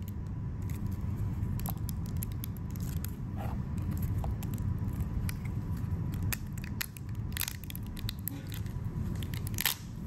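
Cured SLA resin support structures being snapped and crunched off a 3D-printed part by hand: an irregular run of small crisp snaps and crackles, with a couple of louder cracks in the second half.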